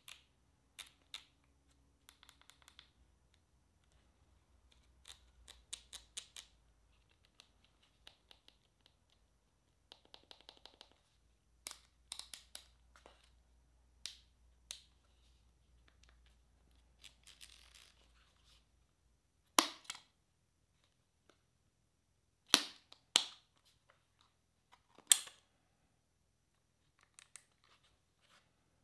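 Canon EOS R6 camera being handled and operated: faint runs of quick, even clicks like its control dials being turned, and a few loud, sharp clicks in the second half, some in close pairs.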